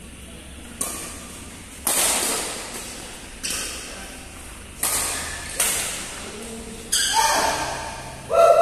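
Badminton rackets striking the shuttlecock in a fast doubles rally: about seven sharp hits a second or so apart, each ringing out in the hall's echo, with short squeaks near the end.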